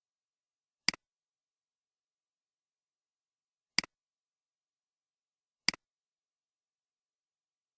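Computer mouse clicked three times, a second or two apart, each click a quick double tick of press and release.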